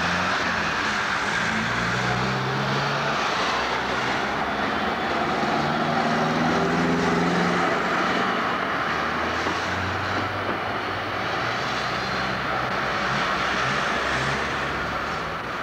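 City street traffic with trams and motor vehicles passing close by: a steady engine and motor hum whose pitch rises and falls as the vehicles go past.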